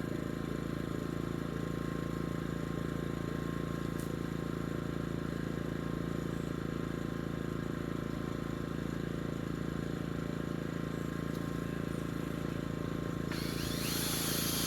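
A steady engine hum at constant speed, unchanging throughout, with a brighter, noisier sound coming in near the end.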